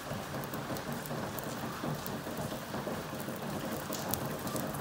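Omelette sizzling and crackling in oil on a tava over a low gas flame.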